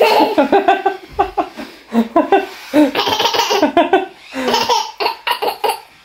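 A small boy and a man laughing together in repeated bursts, with a couple of short pauses.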